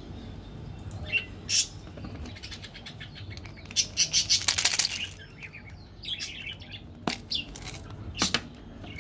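Candy-coated chocolate buttons rattling out of a plastic gift tube into a palm: a quick run of small hard clicks about four seconds in, with scattered handling clicks of plastic before and after.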